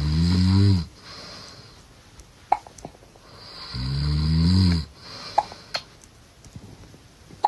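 A man snoring in his sleep: two snores about four seconds apart, each a low buzzing drone lasting about a second that bends up and then down in pitch, with faint clicks in between.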